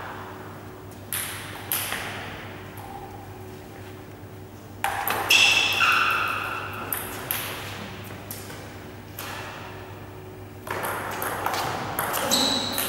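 Table tennis ball bouncing and being struck with paddles: a few sharp pings and clicks, some with a brief ring, about five seconds in, then a quick run of hits and bounces in a rally near the end.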